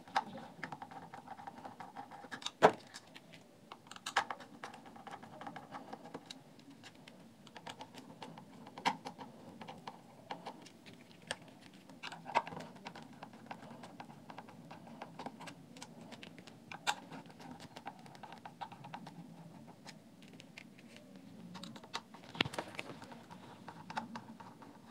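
Faint, scattered clicks and light taps of a precision screwdriver working tiny screws out of a plastic speaker chassis, with a few sharper clicks spaced several seconds apart.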